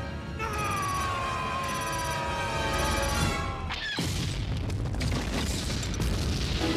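Cartoon sound effects: a long falling whistle, then a sudden explosion about four seconds in that rumbles on.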